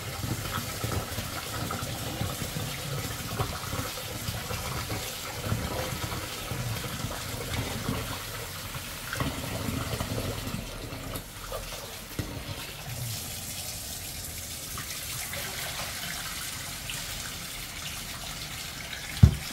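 Rice being washed at the kitchen sink: tap water running and splashing as the grains are rinsed in the water. A single sharp knock near the end.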